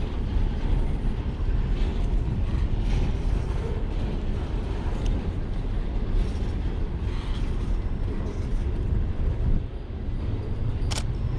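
Double-stack intermodal container freight train rolling past, a steady rumble of steel wheels on rail. A sharp click comes near the end.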